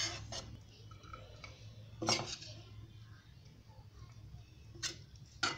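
Steel ladle scraping and clinking against the cooking pan and a ceramic plate while cooked poha is dished out. A few separate clinks, the loudest about two seconds in and two more near the end.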